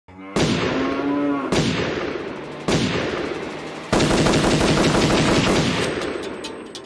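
A band of drums, bass and keyboards playing four heavy unison hits, about one every second and a bit, each with crashing cymbals and a held chord; the last hit rings out for about three seconds.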